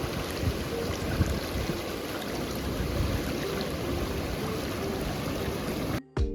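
Steady rush of flowing stream water. Music with a beat cuts in suddenly near the end.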